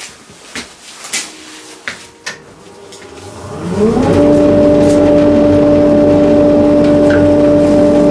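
A few knocks and handling clicks, then a Metabo dust extractor is switched on about three seconds in. Its motor spins up with a rising whine and settles into a loud, steady run, drawing air through a thin hose to test its suction.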